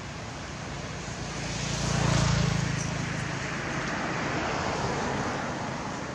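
A vehicle passing: a rush of noise that swells to its loudest about two seconds in, with a low hum at the peak, then eases to a steady level.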